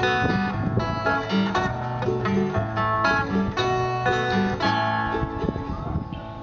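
A live band plays an instrumental passage of an acoustic folk-style song: plucked strings over a steady bass note about once a second. The playing thins out near the end.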